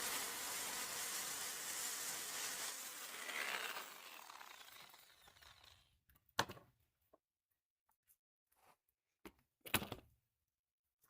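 A steady hiss fades away over the first five seconds or so. A few sharp, separate knocks follow, like wood or a tool being set down and handled.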